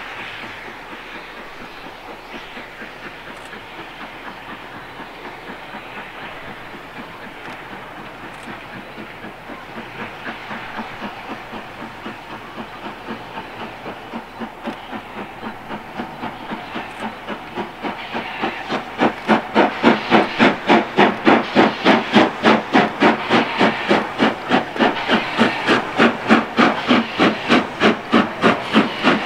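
LMS Jubilee class 5690 Leander, a three-cylinder 4-6-0 steam locomotive, working a train towards the listener. Its exhaust chuffs faintly at first and grows steadily louder, then from about two-thirds in becomes a loud, fast, even beat with hissing steam.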